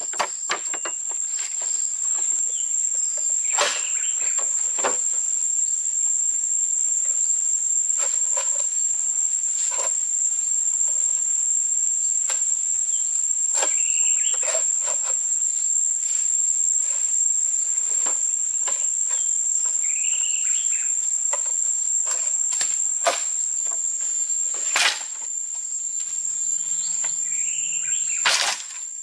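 Steady high-pitched insect trill that carries on without a break, with scattered sharp knocks and clicks and a few short chirps over it.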